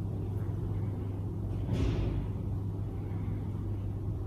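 Steady low background hum, with a brief rustle or handling sound just under two seconds in.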